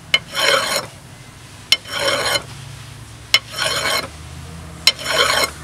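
Big metal file rasping over metal in four slow, even strokes, each opening with a sharp click as the file bites, about one stroke every one and a half seconds. The file is taking down a little of the metal where the alternator is blocked from going in, perhaps a burr.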